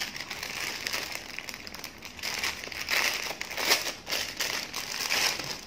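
Clear plastic wrapping crinkling in irregular bursts as it is pulled open by hand.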